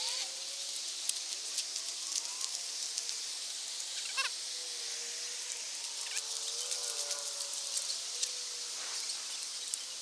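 Footsteps on a paved park path, short scuffs about once or twice a second, over a steady high outdoor hiss.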